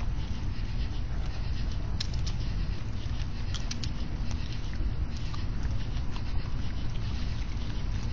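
Raccoons feeding in shallow water: scattered small clicks and wet crunching as they chew and handle food, a couple of sharper clicks about two seconds and three and a half seconds in, over a steady low hum.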